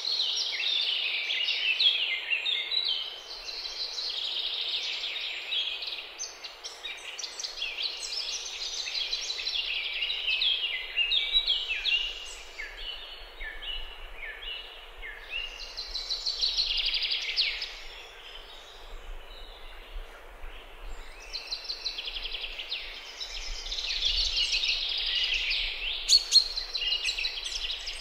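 Several songbirds singing at once, a dense run of overlapping high-pitched phrases that swells and fades, over a steady background noise. A brief sharp click comes near the end.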